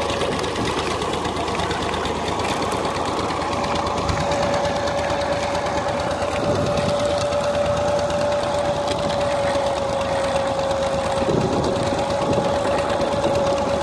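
Massey Ferguson 135 tractor engine running steadily, driving a sugarcane roller crusher through a PTO shaft. The crusher's gears and rollers clatter quickly as cane stalks are fed in, over one steady whining tone.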